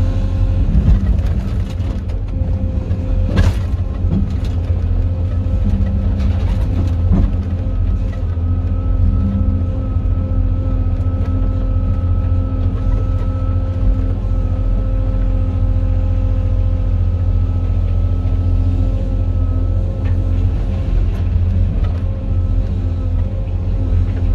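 Cat 390F L excavator's C18 diesel engine running steadily under load as the machine digs and swings, heard inside the cab, with a deep hum and a thin steady whine from about eight seconds in until near the end. A sharp knock stands out about three and a half seconds in.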